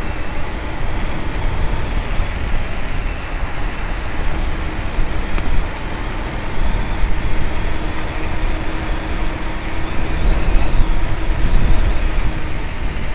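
Bluetran Lightning electric scooter ridden at speed on a smooth road: a steady rush of wind over a clip-on microphone and road noise, with a faint steady hum through the middle.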